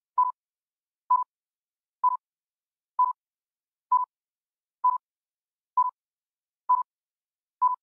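Electronic countdown beeps: nine short, identical beeps, one about every second, with silence between them.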